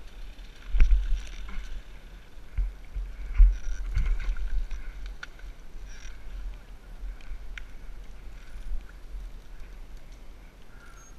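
Low thumps and rumble of wind and movement on a helmet camera's microphone, loudest about one and three and a half seconds in, with scattered clicks and scrapes.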